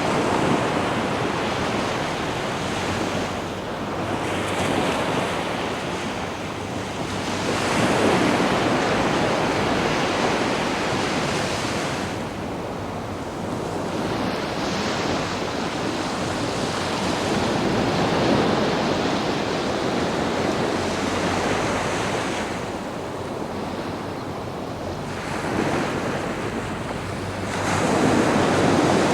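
Sea waves washing onto a sandy beach, the surf swelling and easing about every ten seconds, with wind over it.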